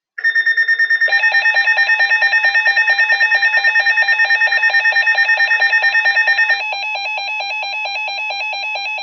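Loud electronic emergency alert tone sounding ahead of a weather warning. It trills rapidly, about eight pulses a second, over a steady high tone, then about six and a half seconds in switches to a quieter, steadier warble.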